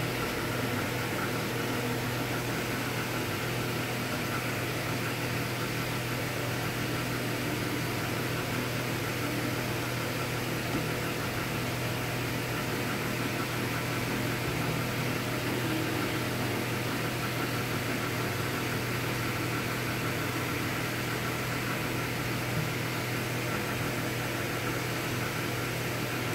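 Steady low hum with an even hiss over it, unchanging throughout: constant room noise.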